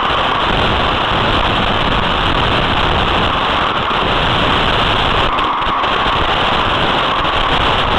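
Steady hiss and rumble of a Tamiya Wild Willy 2 RC truck's onboard FPV audio as the truck drives: its motor and tyre noise blurred together with wind and static from the analog video transmitter.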